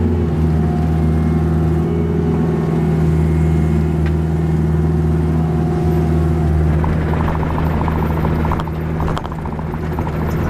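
Kubota KX161-3 5-ton excavator's diesel engine running steadily at working revs with a faint hydraulic whine while it rakes soil, dipping briefly about nine seconds in.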